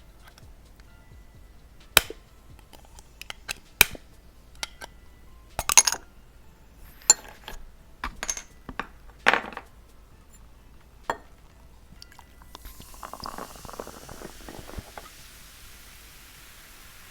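Pumpkin pie soda being poured into a glass: a handful of sharp clinks and taps at first, then a couple of seconds of pouring over a high fizzing hiss that goes on after the pour stops.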